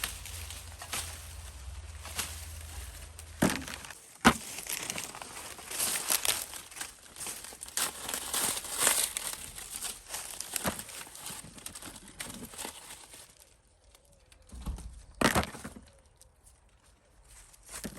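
Dry corn plants rustling and crackling as ears are picked by hand, with a few sharp snaps.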